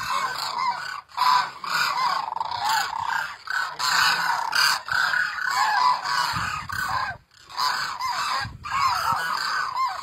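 A large flock of demoiselle cranes calling in flight: a dense chorus of many overlapping calls, with a brief break about seven seconds in.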